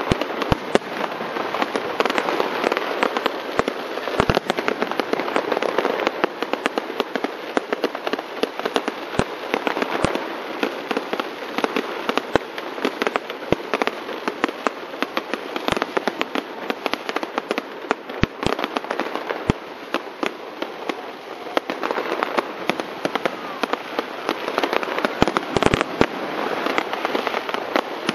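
Aerial fireworks display: dense, continuous crackling packed with many sharp pops and bangs, with a few heavier bangs near the end.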